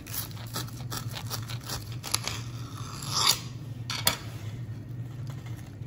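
Serrated bread knife sawing back and forth through a sandwich of lightly toasted bread: a quick run of crunchy scraping strokes for about four seconds, with a louder crunch near the three-second mark and a sharp tap just after four seconds.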